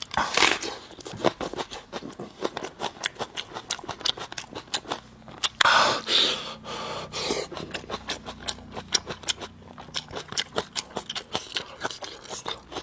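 Close-miked eating: a person chewing meat with wet mouth clicks and smacks. Two louder noisy bites or slurps come about half a second in and about six seconds in.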